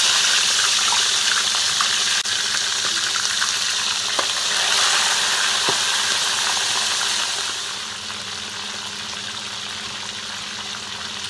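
Whole fish frying in hot oil in a pan: a loud, steady sizzle with small crackles of spattering oil, easing somewhat about three quarters of the way through.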